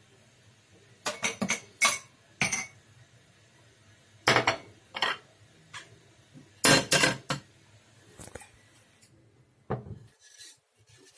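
Dishes and utensils clattering: short runs of sharp knocks and clinks in three groups, then a couple of single knocks near the end.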